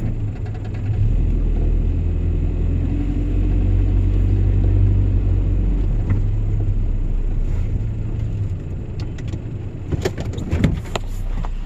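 Low engine and road rumble of motor vehicles, swelling for several seconds as traffic goes by, then a few sharp knocks and clatter near the end.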